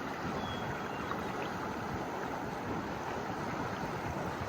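Mountain stream rushing: a steady, even wash of flowing water.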